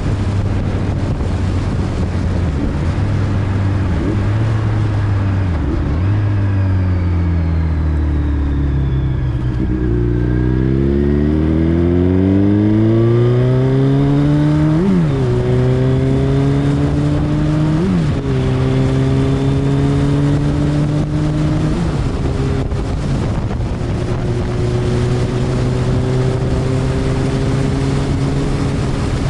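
A vehicle engine running under way over steady rushing noise. Its pitch falls as it slows over the first ten seconds or so, then climbs as it speeds up. Brief pitch jumps come about 15, 18 and 22 seconds in, with the pitch holding fairly steady between them.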